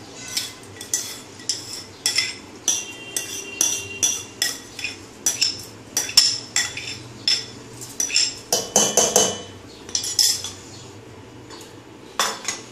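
Steel spoon scraping and clinking against a bowl and a stainless steel mixer-grinder jar while scooping soaked rice: repeated sharp clinks, one or two a second. A louder clatter about nine seconds in, and a single knock near the end.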